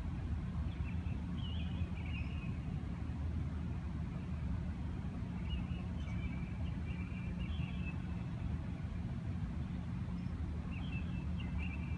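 Steady low rumble of distant road traffic. Short high bird chirps come in three brief bouts: near the start, in the middle and near the end.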